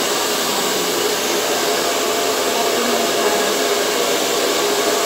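Handheld hair dryer blowing on hair: a steady rush of air with a constant hum beneath it.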